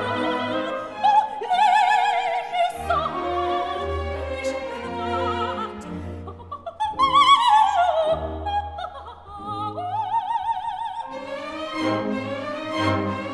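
Background classical music in operatic style: a high voice singing long notes with wide vibrato over an orchestra.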